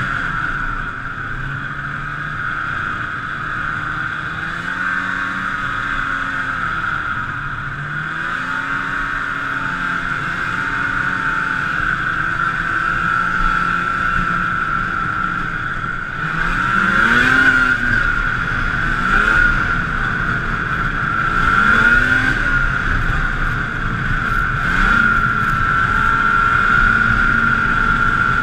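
Snowmobile engine heard from the rider's own seat, running at speed, its pitch rising and falling several times as the throttle is worked, getting louder past the middle. A steady high-pitched whine runs under it throughout.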